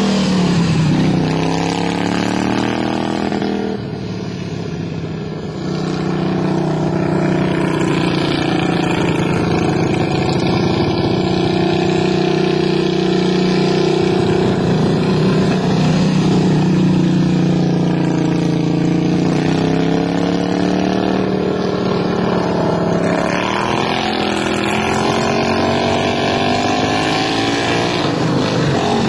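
Racing lawn mower engine running hard. Its pitch drops and climbs again several times as the throttle is eased and opened, and it is quieter for a moment about four seconds in.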